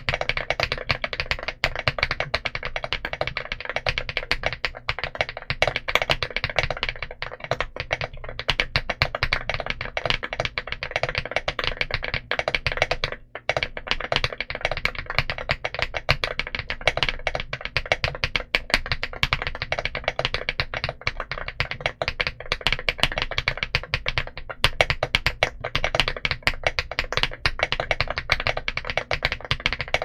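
Continuous fast typing on a Mchose GX87 mechanical keyboard with KTT Vintage White linear switches and Drop MT3 Camillo keycaps: a dense, unbroken stream of keystroke clacks.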